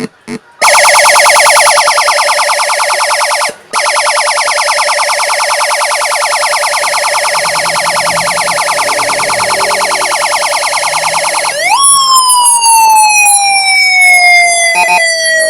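Electronic police siren tones from a homemade, programmed siren circuit played through a speaker. A fast, rapidly repeating warble, cut briefly about three and a half seconds in, switches near the end to a tone that jumps up and then slowly falls.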